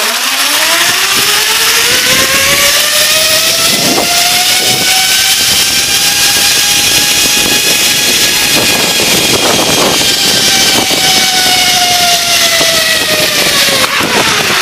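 Zip line trolley whining along its cable, the pitch rising as it picks up speed, holding high, then dropping slightly as it slows near the end, over loud wind rush on the microphone.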